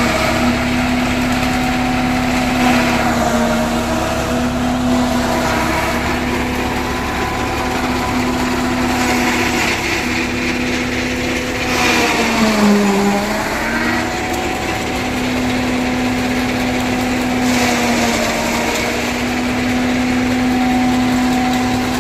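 A John Deere tractor's diesel engine driving a silage chopper, running steadily with a constant whine. The pitch sags about twelve seconds in and recovers, then dips briefly again near eighteen seconds, as the machine takes the load of corn stalks being fed in.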